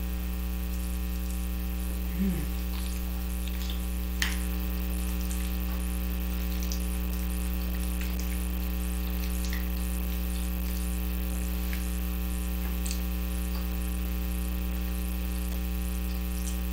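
Steady electrical mains hum with a ladder of evenly spaced overtones, the loudest thing throughout. Faint scattered clicks of chewing and a fork on a plate sit over it, with one sharper click about four seconds in.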